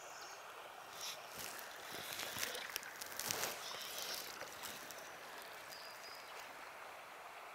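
Faint, steady rush of a shallow river's current, with a few seconds of splashing and rustling in the middle as a wading angler shifts his legs in the water and handles his fly line.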